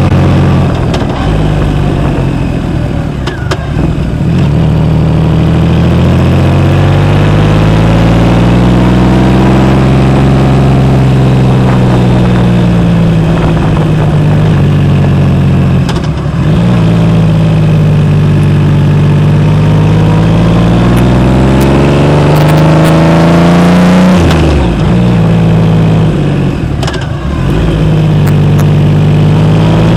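2012 Triumph Rocket III Roadster's 2.3-litre inline three-cylinder engine running through a Jardine exhaust under way. The revs rise and fall several times, with a few brief dips in loudness where the throttle closes.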